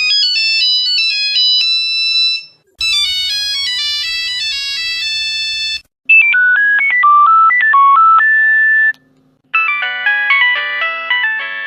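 Nokia mobile phone ringtones played one after another: four short melodies of about three seconds each, separated by brief breaks. The first are simple beeping tunes, and the last has fuller, chord-backed notes.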